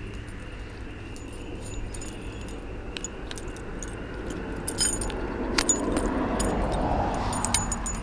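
Scattered light metallic clinks and jingles of a spinnerbait's blades and wire arm rattling as the lure is worked out of a largemouth bass's mouth by hand.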